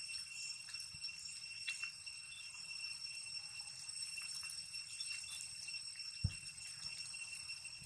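Steady high-pitched insect chorus, with a single dull thump about six seconds in.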